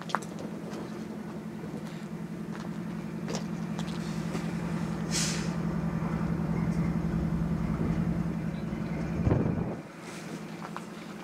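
A steady engine drone that grows louder over several seconds, with a short hiss of air about five seconds in and a heavy thump near the end, after which the drone drops away suddenly.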